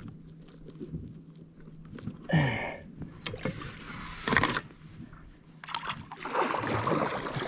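Water sloshing and lapping against an inflatable paddleboard while a large fish is handled on the deck. A short grunt with a falling pitch comes about two seconds in, and a brief loud burst of noise follows a couple of seconds later.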